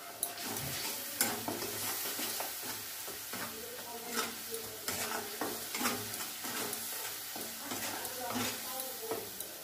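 A metal spatula scrapes and stirs a spice paste of ginger-garlic, coriander powder and turmeric around a metal kadai. The paste is sizzling as it fries in oil, and the spatula makes irregular scrapes and clicks against the pan.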